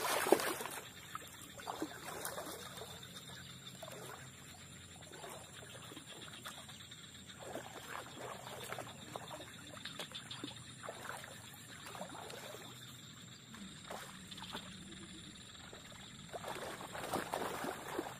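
Shallow lake water trickling and splashing as a person moves and wades through it, in scattered small splashes. The loudest splash comes just after the start, with another run of splashing near the end.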